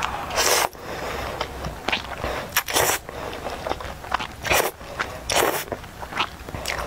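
Close-miked slurping of dark-sauced noodles: about four loud slurps, each a fraction of a second long, with softer chewing and mouth sounds between them.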